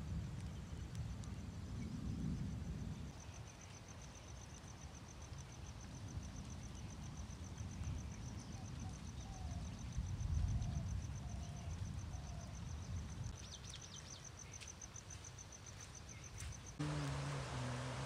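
An insect trills steadily, a high, rapidly pulsing note, over a low rumble of wind on the microphone. Near the end the sound cuts abruptly to a louder, even rushing noise with a low hum.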